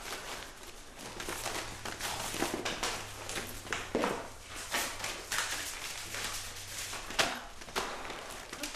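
Irregular rustling and tapping of papers and a handbag being handled and rummaged through, with a low steady hum under it for most of the time.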